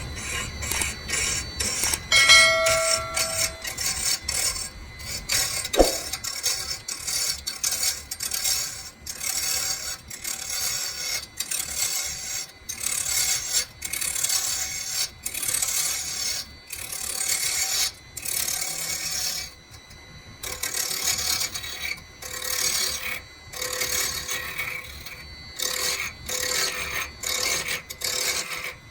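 Wood being abraded by hand: a long series of irregular rubbing strokes, roughly one to two a second, with short gaps between them. A brief metallic ring sounds about two seconds in, and a sharp click near six seconds.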